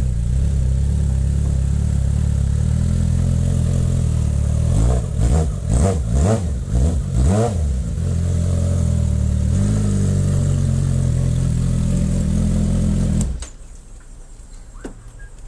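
Suzuki GSX650F inline-four motorcycle engine running, revved in a quick series of blips a few seconds in, settling back to steady running, then switched off shortly before the end.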